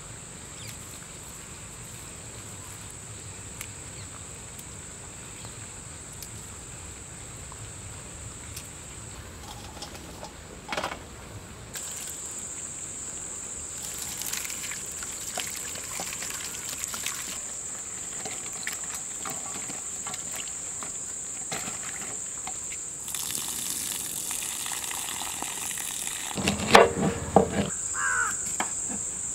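Insects in a farm field making a steady, high-pitched drone. A few brief louder sounds break in, the loudest a short burst near the end.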